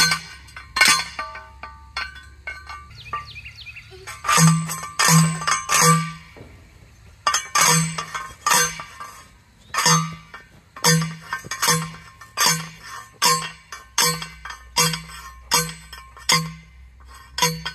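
A steel fence T-post being driven with a metal post driver: repeated ringing metallic clangs, about one and a half a second, in runs broken by a pause of about three seconds starting about a second in.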